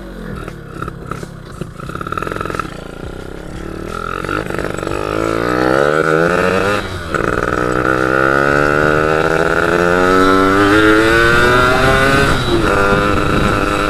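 Yamaha F1ZR's two-stroke single-cylinder engine accelerating under a rider, its pitch climbing through the revs. It drops briefly about seven seconds in as it shifts gear, then climbs again until a second shift near the end.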